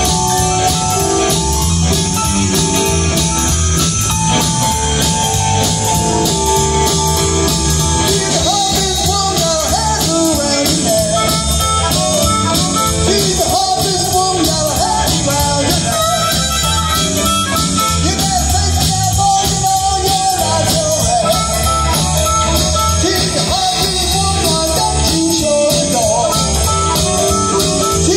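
Live blues band playing: electric guitar, electric bass, keyboard and drums, with a harmonica playing a bending lead line over them from about eight seconds in.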